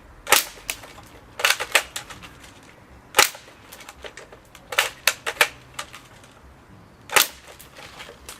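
Airsoft AK rifle firing single shots: about eight sharp cracks at irregular gaps, mostly a second or two apart, with two in quick succession a little past the middle.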